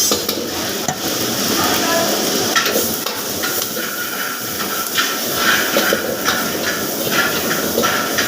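Kitchen cooking sounds: a steady sizzling hiss with irregular knocks and clatters of utensils.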